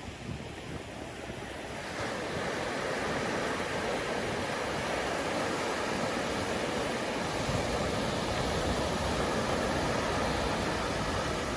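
Ocean surf breaking and washing up a sandy beach, a steady rushing that swells about two seconds in as a wave breaks and runs up the shore.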